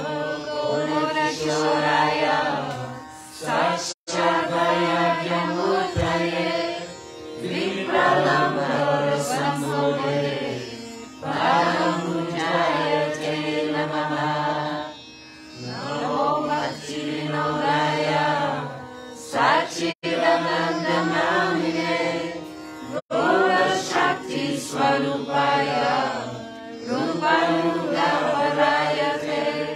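A man's voice singing a devotional kirtan chant in phrases of about three to four seconds, with short breaks between them, over a steady drone.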